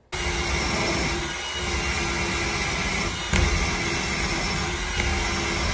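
Cordless drill spinning a rubber decal eraser wheel against a fiberglass hull, scrubbing off a vinyl decal: a steady motor whine over a rough rubbing noise.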